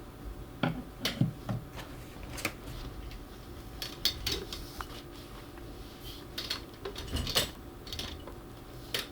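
Hands handling manga volumes and packaging: scattered light clicks, taps and short rustles at irregular intervals, over a faint steady room hum.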